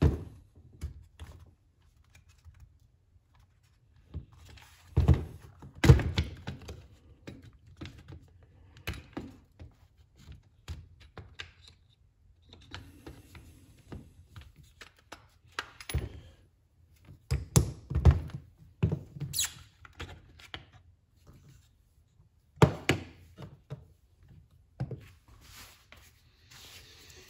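Hard plastic and metal parts of a HART cordless impact driver being handled, unscrewed and set down on a workbench during disassembly: irregular knocks, clicks and clatter, loudest about five to six seconds in and again around seventeen to nineteen seconds in.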